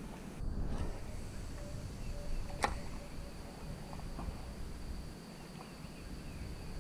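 Quiet outdoor ambience: a faint low rumble throughout, a thin steady high whine like an insect, and one sharp click about two and a half seconds in.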